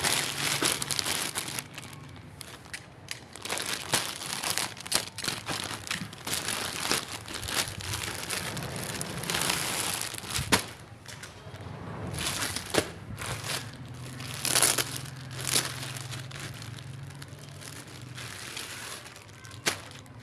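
Plastic packaging crinkling and rustling in irregular bursts, with sharp crackles, as a parcel is handled and opened.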